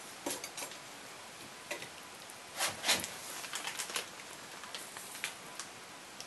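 Irregular light clicks and knocks over a steady hiss, with the loudest few about three seconds in.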